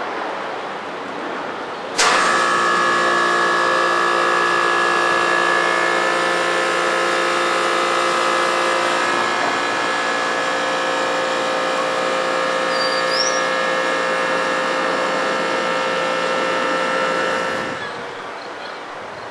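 A steady machine hum with several held tones. It starts abruptly about two seconds in and fades down shortly before the end.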